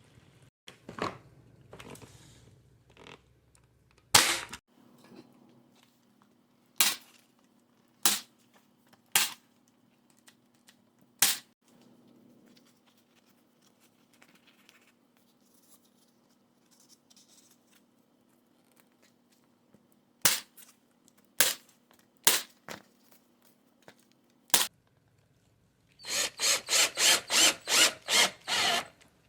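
A staple gun firing single sharp shots, one at a time with pauses between, while stretching canvas over a wooden frame. Near the end comes a quick run of about eight scraping strokes, roughly three a second.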